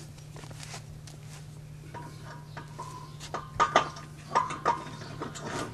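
Metal clinks and knocks as the cylinder head of an antique water-cooled gas engine is fitted onto the cylinder. A faint metallic ringing is followed by a few sharp clanks about three and a half to five seconds in.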